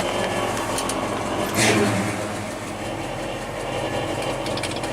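1963 Chevrolet C30 one-ton truck's engine idling steadily after running for about twenty minutes, with a rattle from somewhere down underneath that has not yet been tracked down. A short louder noise comes about a second and a half in.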